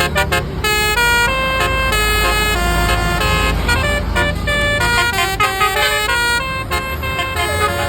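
Telolet bus horn playing a fast tune of short tooting notes that jump up and down in pitch, with notes overlapping in places, over a low rumble.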